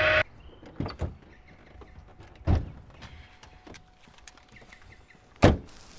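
Pickup truck doors being opened and shut: a few light clicks and knocks, then two solid door slams about three seconds apart, the second the loudest.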